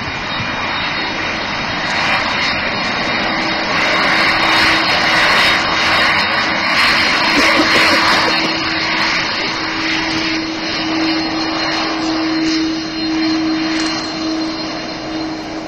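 Airbus A310-304's twin General Electric CF6-80C2 turbofan engines running at low taxi thrust as the airliner rolls slowly and turns: a steady jet rush and whine, loudest in the middle, with a steady low hum joining about three seconds in.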